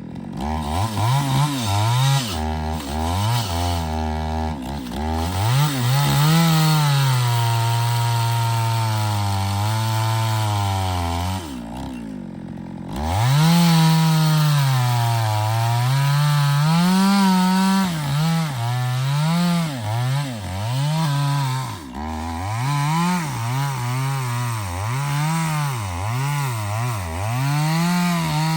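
Chainsaw cutting into a large acacia log, the engine note rising and falling as the chain loads up in the wood. About twelve seconds in it drops briefly to a lower, quieter note, then revs back up and keeps cutting.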